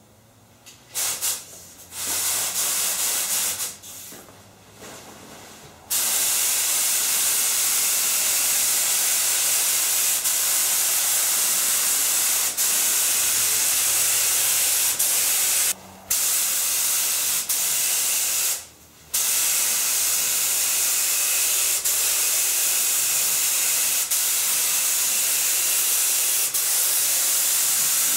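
Gravity-feed spray gun hissing as it sprays primer on compressed air: two short trigger pulls, then long steady passes broken by two brief pauses.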